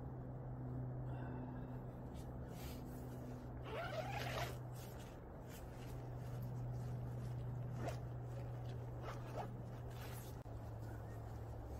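Tent door zipper pulled open in one quick rasp about four seconds in, then a few soft clicks and rustles, over a steady low hum.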